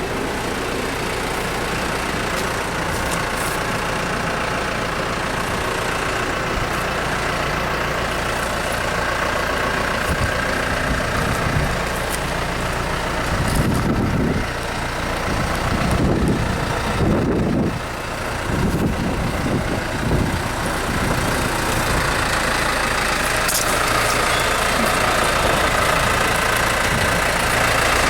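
An engine running steadily, with a few louder low surges about halfway through.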